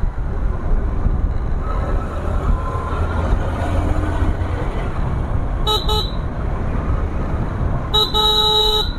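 Motor scooter horn beeping: two quick toots about six seconds in, then a longer toot near the end. Under it runs a steady low rumble from the ride.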